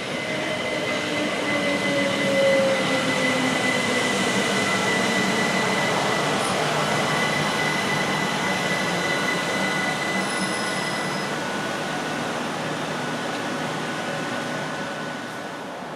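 Train running on the rails with a steady high-pitched wheel squeal over the rumble, and a lower tone sliding down early on. It grows louder about two seconds in, then slowly eases off.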